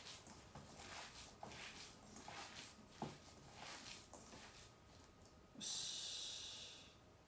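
Hands kneading and squeezing raw ground pork and minced vegetable filling in a stainless steel bowl: soft, wet squishing strokes, irregular and faint. Near the end a short, louder hiss starts suddenly and fades out within about a second.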